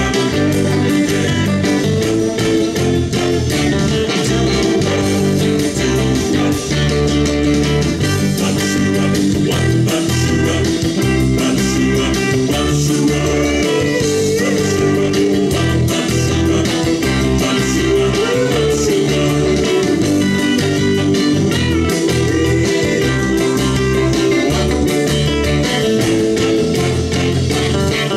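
Guitar and bass music played very loud through a pair of freshly refoamed Paradigm Atom bookshelf speakers, turned up to listen for any buzzes or crackles that would show a badly done refoam.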